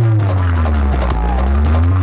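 Electronic DJ music with very heavy bass. A deep synth tone slides down in pitch over about a second and then slowly climbs back up, like a slow siren.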